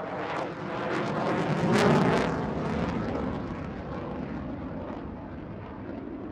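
Airplane flying past, its engine noise swelling to a peak about two seconds in and then slowly fading.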